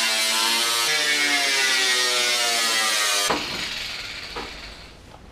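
Grinder with a cut-off wheel cutting through a steel car fender: a loud whine over a hiss of grinding, its pitch slowly falling. About three seconds in the cutting stops and the whine dies away.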